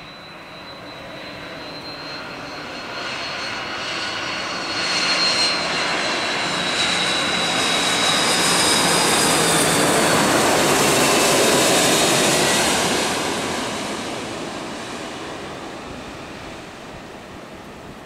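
Airbus A330-300 jet airliner passing overhead on final approach to land, its engine roar building to a loud peak about halfway through and then fading as it moves away. A high engine whine drifts slightly lower in pitch as the aircraft approaches.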